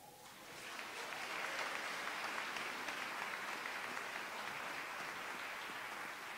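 Congregation applauding, starting about half a second in and slowly easing off.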